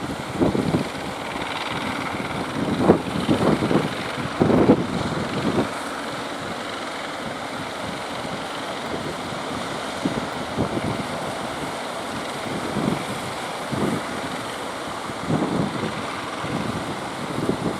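Strong wind buffeting the microphone in irregular gusts over a steady rush of surf.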